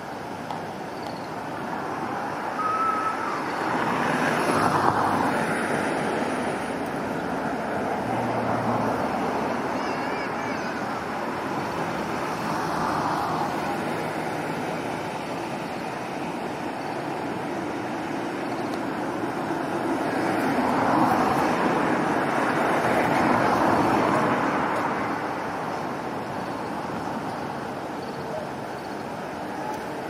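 Steady road traffic noise, swelling as vehicles pass about four seconds in and again around twenty to twenty-four seconds.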